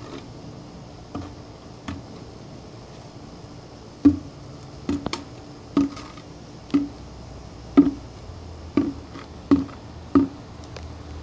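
An empty plastic bucket knocking against concrete as it is carried low, about once a second from about four seconds in, after two lighter knocks early on.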